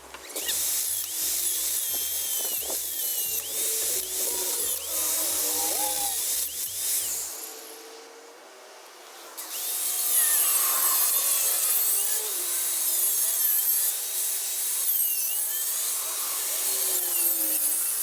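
Power tool cutting through steel seat brackets, its pitch wavering under load, in two long passes with a short pause about eight seconds in.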